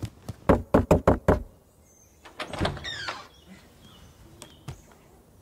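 Knuckles knocking on a wooden door: a quick run of about five raps, followed a little later by a short creak as the door is opened.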